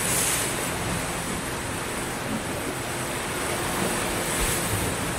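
Small sea waves breaking on a sandy beach: a steady hiss of surf that swells as a wave breaks at the start and again about four and a half seconds in.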